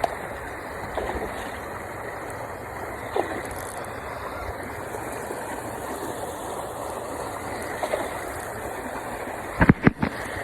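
Steady rushing of flowing water, with a cluster of loud sharp knocks about a second before the end.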